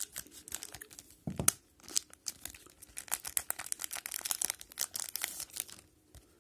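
Hockey card pack wrapper being torn open and crinkled: a dense run of sharp crackling rustles with one dull thump about a second and a half in, stopping near the end.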